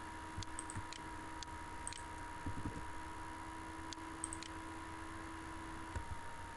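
A few faint, scattered computer-mouse clicks over a steady electrical hum and hiss from the recording setup.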